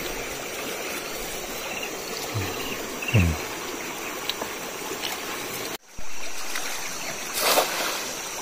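Steady rush of a shallow river flowing over stones. About three-quarters of the way in, a brief splash as a thrown cast net lands on the water.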